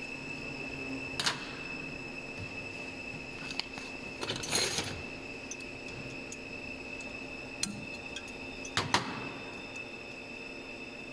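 Scattered sharp metallic clicks and knocks, with a short rattle about four and a half seconds in and the loudest knock near nine seconds, from hand work on a tube-processing machine's loading box. A steady machine hum with a thin high whine runs underneath.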